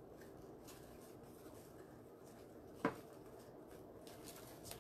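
Faint rustling of twine and ribbon being handled, with one short tap about three seconds in.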